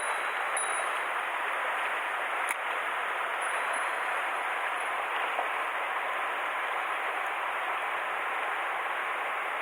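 Mountain stream water rushing steadily, with one faint click about two and a half seconds in.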